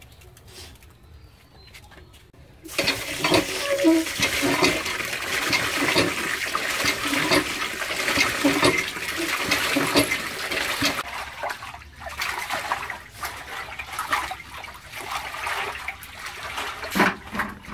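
Water gushing from a tube-well hand pump's spout into a large aluminium pot of rice, starting suddenly about three seconds in and splashing onto the grains. It eases after a while into the swishing of hands washing the rice in the water, with a couple of knocks near the end.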